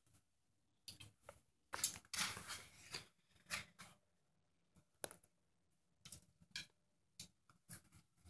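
Faint, scattered clicks and rustles of a bow and arrow being handled as an arrow is fitted to the string, the loudest cluster about two seconds in.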